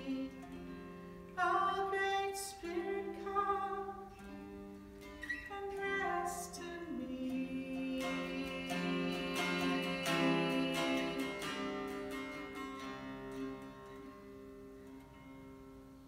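Mountain dulcimer playing a slow melody over steady drone strings; the music thins and the last notes die away near the end.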